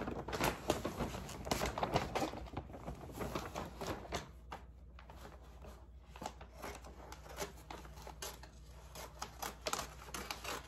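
Gift-wrapping paper rustling and crinkling as it is handled and folded around a cardboard box, with small taps and clicks. The handling is busiest at the start, quieter in the middle and picks up again near the end.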